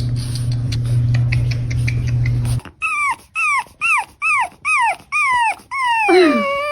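A puppy whining and crying in a rapid string of short, high, falling whimpers, about two a second, ending in a longer, louder cry. Before the whimpers start, about two and a half seconds in, there is a steady low hum with faint clicks.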